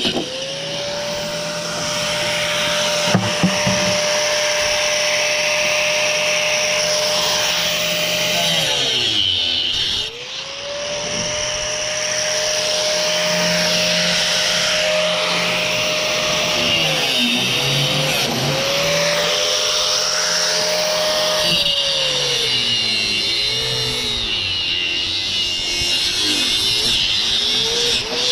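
Handheld electric power tool run in repeated bursts: the motor spins up, runs at a steady whine for several seconds, then winds down, three long runs followed by shorter on-off blips, used in cutting apart an AC unit for its copper.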